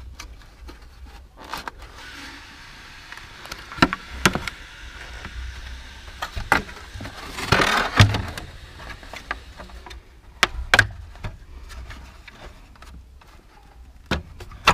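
Plastic clips on a Peugeot 307 tail light's bulb holder being pried and snapped loose, with the plastic housing handled. There are several sharp plastic clicks and a stretch of rubbing and scraping, the loudest click coming about two thirds of the way through.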